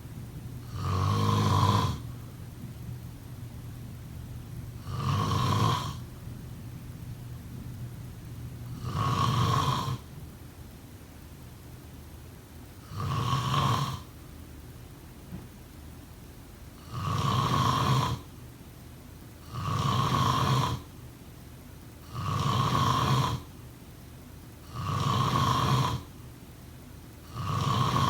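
A person snoring: nine snores about a second long each, roughly every four seconds at first, then coming faster, about every two and a half seconds, in the second half.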